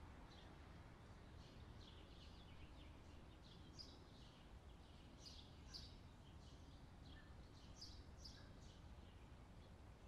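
Faint bird chirps: short, high calls that come scattered and in little clusters, more often in the second half. Under them runs a low, steady outdoor rumble.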